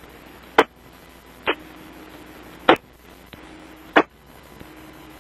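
UHF ham radio repeater heard through a receiver with no one talking: five short bursts of squelch static, about a second apart, over a steady low hiss.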